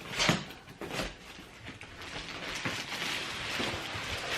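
Stroller parts being handled during unpacking: a sharp knock about a quarter second in and another about a second in, then scraping and rustling of plastic and packaging.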